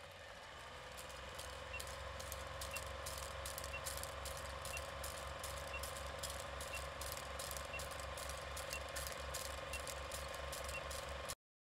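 Film projector sound effect under a countdown leader: a rapid, even mechanical clatter with a steady hum, and a faint short pip about once a second. It cuts off suddenly near the end.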